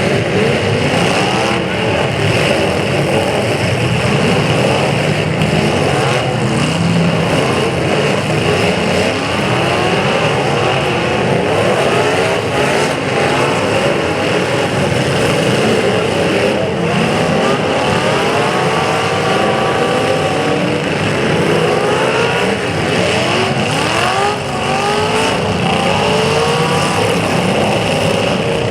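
Several demolition derby cars' engines revving hard at once, their pitches rising and falling over each other, with a few sharp crash impacts.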